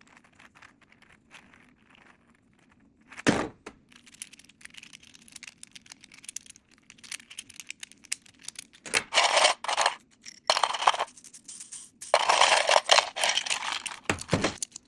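3D-printed plastic fidget toys being worked by hand: scattered light clicks, a sharp snap about three seconds in, then bursts of rattling and scraping plastic around the middle and again later, ending with a low thump.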